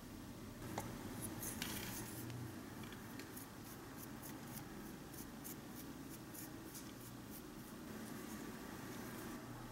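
Flat wooden stick stirring dry flour in a small glass bowl, with quick, faint scratchy strokes as it scrapes against the glass and a light knock about a second in.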